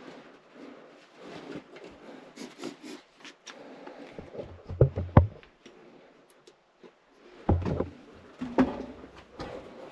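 Footsteps scuffing and crunching on loose rock in a mine working, with irregular knocks and a few heavier thumps about five and seven and a half seconds in.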